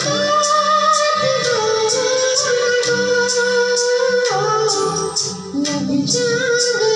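A slow Hindi film song sung with long held notes over a backing track, starting with a rising glide into the first note, with a soft steady beat underneath.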